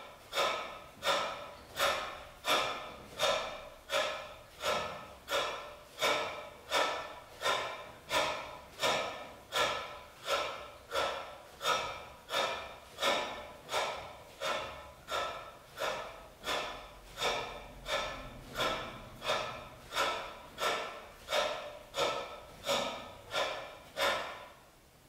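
A man breathing hard and sharply in a steady rhythm, about three forceful breaths every two seconds, which stop just before the end.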